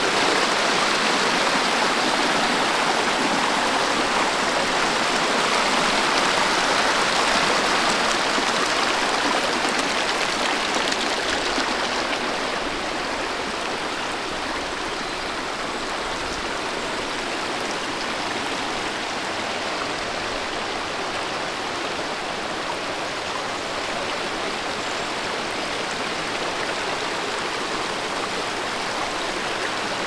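Steady rush of cascading mountain water. It swells right at the start and eases slightly about twelve seconds in.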